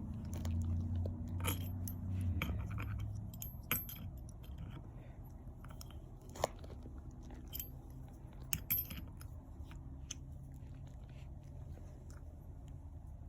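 Small metal tools and parts clicking and clinking as they are handled during hand work on a motorcycle clutch basket, with scattered sharp ticks and a low hum that stops about two seconds in.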